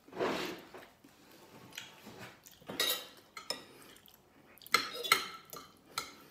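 Metal spoon and fork scraping and clinking against a china dinner plate of rice, with a few sharp ringing clinks about three seconds in and a cluster more near the end. A short breathy puff at the very start.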